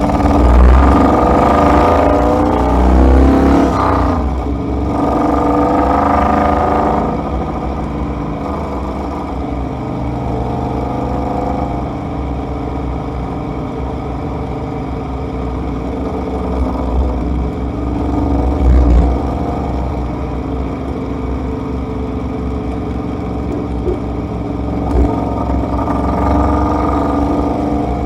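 Ineos Grenadier driving: steady engine and road rumble, with the engine note rising and falling under acceleration in the first few seconds and again near the end.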